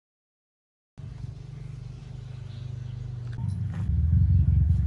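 After a second of dead silence, a motor vehicle engine is heard as a steady low hum that grows louder from about three and a half seconds in.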